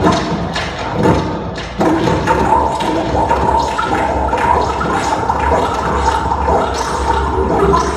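Live electronic performance played through a PA speaker: a dense, continuous wash of sound with frequent knocks and clatters. It jumps louder about two seconds in.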